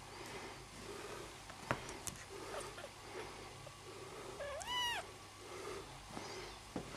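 A kitten meowing once, a short high call that rises and then falls in pitch, a little past halfway. A sharp click comes a couple of seconds in.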